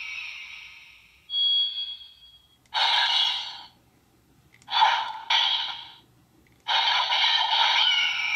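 Bandai DX EagRiser toy sword playing electronic sound effects through its small built-in speaker, which sounds tinny. A short beep is followed by three bursts of noisy attack sounds set off by the trigger, and the last burst is long.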